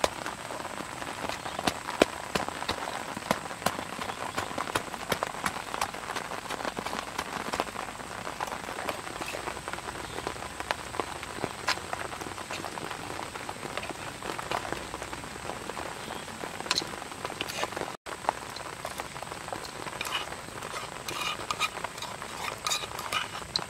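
Wooden pestle and metal spoon working a chopped salad in a clay mortar: dense, irregular clicking and scraping with occasional sharper knocks.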